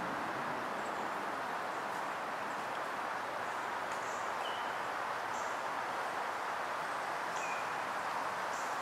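Steady outdoor background noise with a few short, high bird chirps scattered through it.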